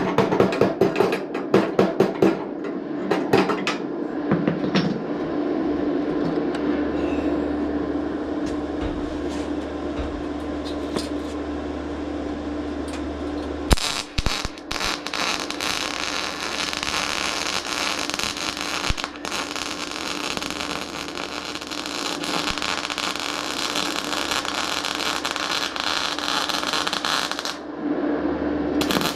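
A hammer tapping rapidly on sheet-steel panel work for the first few seconds, then a steady hum. About halfway through, a MIG welder's arc starts with a sudden loud crackle that runs steadily for about fourteen seconds, stops shortly before the end, and starts again at the very end.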